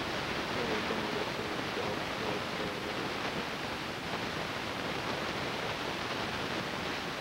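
Steady hiss of background noise from a low-quality camcorder recording, with a faint wavering tone under it from about half a second to three seconds in.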